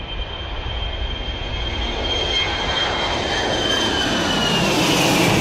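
Beriev A-50 AWACS jet flying past low, its four turbofan engines giving a high whine over a rushing roar. The sound grows louder through the pass, and the whine slides down in pitch over the last couple of seconds as the aircraft goes by.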